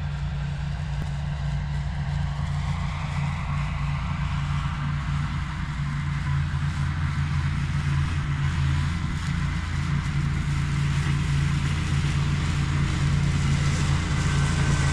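Ventrac compact tractor's engine running steadily with its Tough Cut mower deck cutting overgrown grass. A rushing cutting noise builds a couple of seconds in, and the whole sound grows gradually louder.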